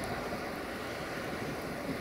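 Steady low rumble of an approaching diesel locomotive, mixed with wind noise on the microphone.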